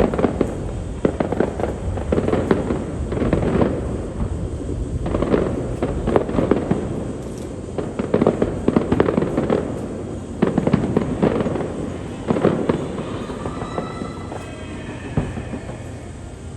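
Aerial fireworks bursting in quick clusters, sharp reports overlapping with dense crackling. Near the end a few pitched, whistle-like tones sound among the bursts.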